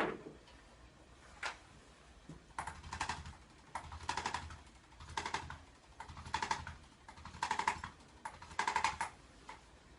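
Handheld chiropractic adjusting instrument firing in short bursts of rapid clicks, six bursts about a second apart, used to work the joints and break up scar tissue. A sharp knock sounds at the start.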